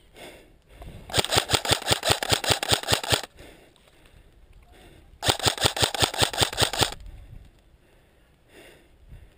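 Airsoft rifle firing two rapid full-auto bursts of about two seconds each, a couple of seconds apart, the shots sounding as fast sharp clicks.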